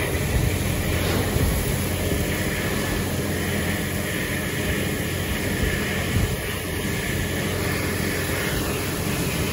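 Hurricane wind blowing steadily with heavy wind-driven rain hissing across pavement, the gusts buffeting the microphone with a low rumble.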